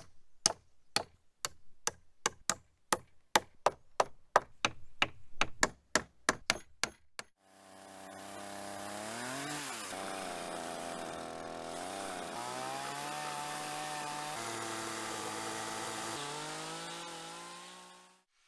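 A run of sharp knocks, about three a second for the first seven seconds. Then a chainsaw's engine fades in and runs, its pitch rising and falling and holding at a few steady speeds before fading out near the end.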